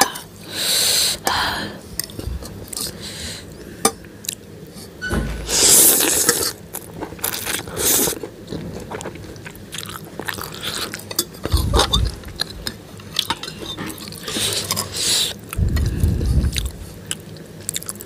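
Eating spicy soupy Maggi instant noodles: several loud slurps of noodles and broth, wet chewing, and a metal spoon and fork clicking against a ceramic bowl.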